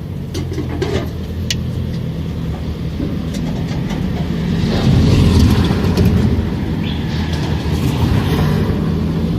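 Car engine idling steadily, a little louder around the middle, with a few sharp clicks in the first couple of seconds.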